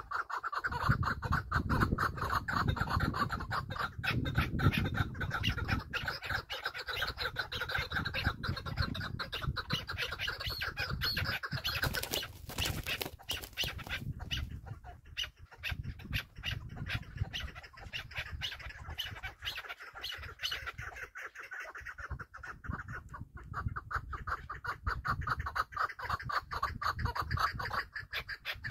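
A partridge calling in a fast, continuous run of repeated notes. There is a low rumble underneath and a brief burst of noise about twelve seconds in.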